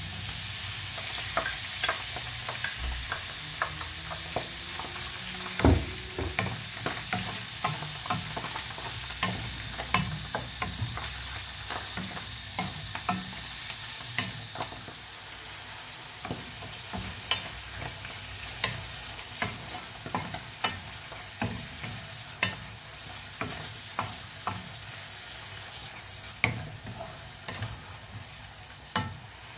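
Sliced mushrooms sizzling in a non-stick frying pan while a wooden spatula stirs them, scraping and knocking against the pan in frequent, irregular clicks. One knock, about six seconds in, is louder than the rest.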